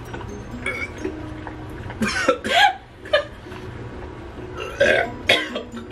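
A man gagging and retching over a bowl after a mouthful of food he can't stomach: a cluster of harsh heaves about two seconds in, a shorter one a moment later, and more near the end.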